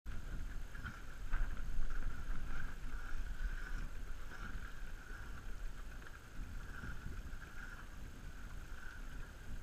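Steady low rumble of wind and water around a small fishing boat on open water, with a faint wavering hum above it.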